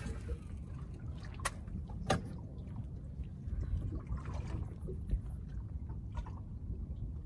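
Water lapping and gurgling against a small boat's hull, over a steady low rumble. Two sharp clicks come about one and a half and two seconds in.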